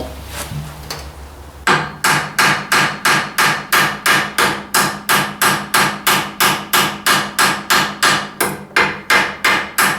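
Steady series of hammer blows on metal, about three a second, with a ringing note after each, driving a worn bushing out of a Ford 800 tractor's front axle. The blows start under two seconds in and keep going until just before the end; the bushing is tighter in its bore than expected.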